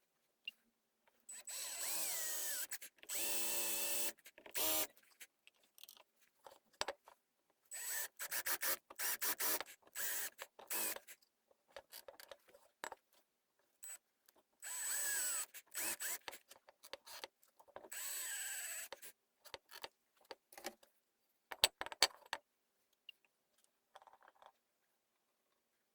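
Electric power tool run in short bursts of one to two seconds, its motor pitch rising and falling with each run, with clicks and knocks in between.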